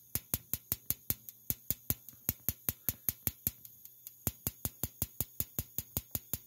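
Spark igniter on a Carrier 58GS gas furnace's 3-wire pilot assembly ticking steadily, about five sharp sparks a second, as it tries to light the pilot gas; the pilot has not yet caught.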